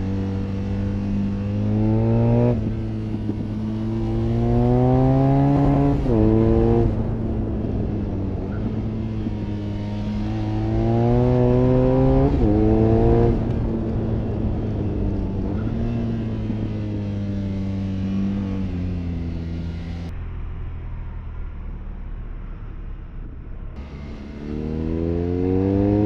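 BMW R nineT's air/oil-cooled boxer twin under way, pulling hard with its note climbing and then dropping sharply back at upshifts three times. It settles into a steady cruise, eases off the throttle for a few seconds near the end, then climbs again.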